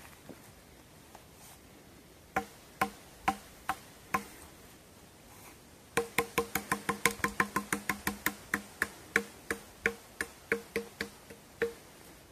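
Sharp, ringing knocks of something hard striking wood. A few spaced blows come first, then a fast run of about four or five a second that thins out near the end.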